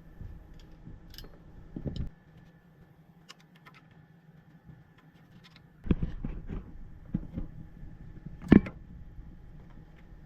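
Hand tools and metal parts clinking and clanking during transmission removal: a knock about two seconds in, a quick run of clinks about six seconds in, and a single sharp clank, the loudest, near the end.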